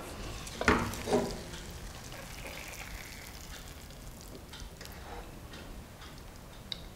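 A wooden spatula knocks twice against a frying pan about a second in, and the pan rings briefly each time. Faint scraping and light clicks follow as the cooked halwa is scraped out of the pan.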